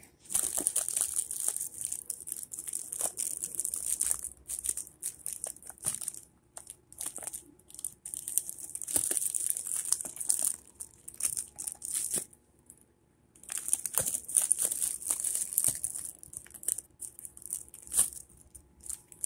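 Thin plastic sleeve wrapped round a potted plant crinkling and rustling as hands pull and work at it, in irregular bursts with a short pause about twelve seconds in.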